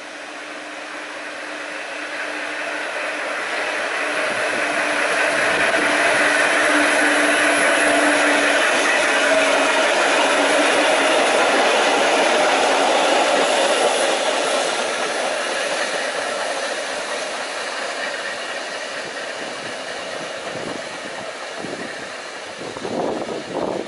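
Vintage BMT subway train passing close by on the tracks, its wheels running on the rails in a steady rush that builds, peaks as the cars go past, then fades as the train pulls away. A few short knocks near the end.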